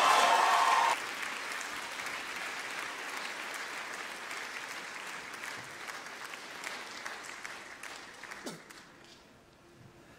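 The song ends on a held note that cuts off about a second in, leaving an audience applauding; the applause slowly fades away.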